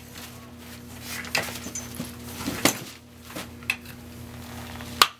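Caster wheels being handled and their metal stems pushed into the bassinet's tubular metal frame legs: a series of irregular clicks and knocks, the sharpest one near the end.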